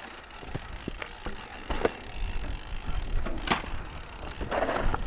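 Mountain bike rattling over rough trail: scattered sharp clicks and knocks from the bike over a steady low rumble.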